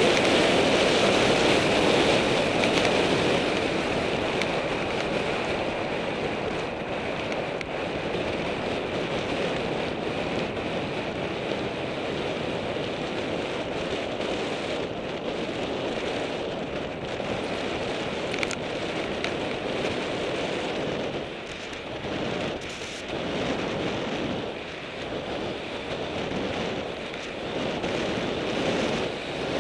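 Wind rushing over the microphone of a camera riding on a bicycle during a downhill run on a paved road, with rolling noise mixed in. It is loudest in the first few seconds, drops a little, and rises and falls in the second half.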